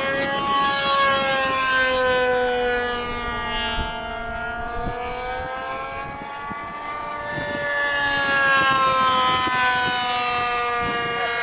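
Hybrid RC airplane's nitro glow engine, with its two electric ducted fans, running in flight overhead. A high whining note that slowly falls in pitch, then rises again as the plane passes and turns.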